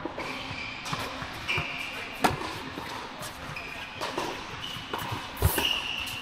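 A tennis rally on an indoor hard court: the ball is struck by rackets and bounces with several sharp pops, the loudest about two seconds in and near the end. Short high squeaks from the players' shoes on the court surface come between the shots.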